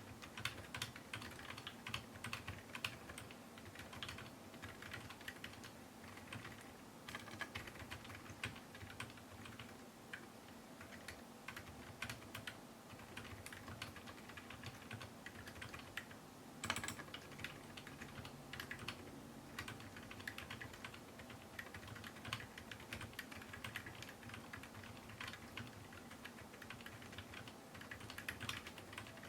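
Steady, fast typing on a TADA68 mechanical keyboard with Gateron Ink Black switches fitted with MX Silent stems, lubed, under MT3 ABS keycaps in a wooden case. The keystrokes are soft and dampened, and one keystroke a little past the middle is louder than the rest. Heard through a camera's built-in microphone.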